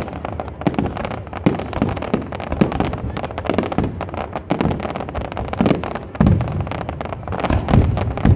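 Aerial firework shells bursting in a dense, irregular barrage, bang after bang with crackling in between. Heavier booms come in about six seconds in and again near the end.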